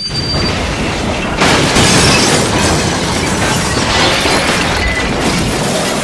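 Dubbed train-crash sound effect for a G-scale model train derailing: a long, noisy crash that cuts in abruptly and gets louder about a second and a half in.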